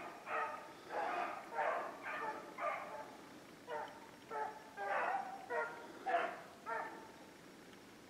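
Beagles baying while running a rabbit's track: a string of short bays, about two a second, that stops about seven seconds in.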